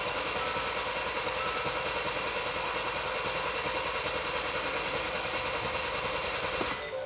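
Kia Sorento 2.2-litre D4HB diesel being cranked over by the starter without firing, because its fuel system is still empty after a high-pressure fuel pump replacement. The steady cranking stops about seven seconds in.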